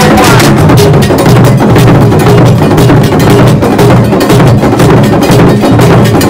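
Traditional West African hand drums played live by an ensemble, a loud, fast, dense rhythm of strikes with bright metallic bell-like hits among them.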